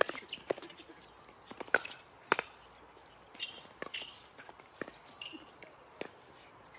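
Pickleball paddles striking a plastic pickleball during a fast rally: a string of sharp pops at irregular intervals, the loudest a little over two seconds in.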